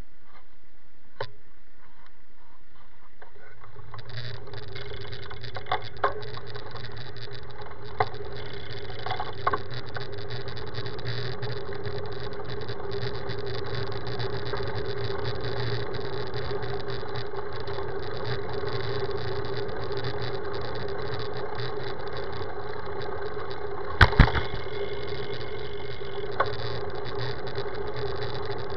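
Wind and road noise on a bicycle-mounted camera riding on asphalt: a steady rumble that thickens about four seconds in, with a few sharp knocks from bumps, the loudest a double knock near the end.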